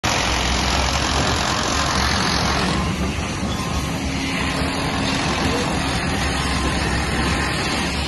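Steady construction-site noise: heavy machinery engines running with a continuous low rumble, mixed with street traffic.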